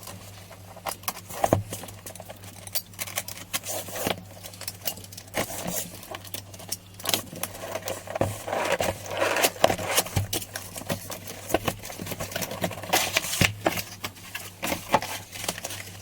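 Irregular clicks, taps and scraping of hand work with tools and materials, with a longer stretch of rubbing about halfway through, over a steady low hum.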